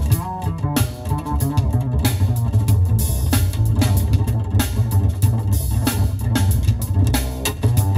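Bass and drum kit music playing loudly through a custom car audio system with heavy low bass, heard inside the Prius α's cabin.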